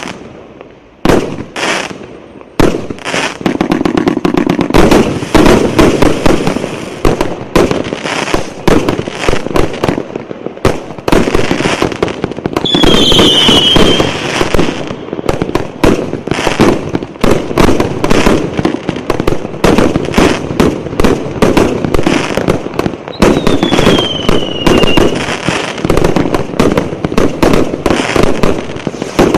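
Fireworks display: a few separate bangs at first, then a dense, continuous run of shell bursts and crackling reports. Two falling whistles cut through it, one about 13 seconds in and one near 24 seconds in.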